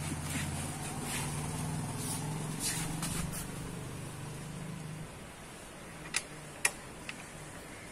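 A low, steady motor hum fades out about five seconds in. Then come two sharp metallic clicks and a fainter third as the rear drum brake's rod adjusting nut is worked by hand.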